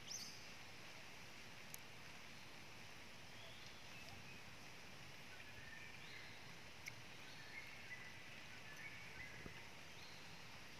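Faint outdoor evening ambience: a steady high hiss with a few short, high, whistled calls partway through and a few small clicks.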